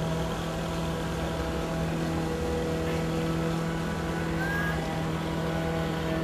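Steady engine hum with low road rumble, heard from inside a vehicle moving at an even speed.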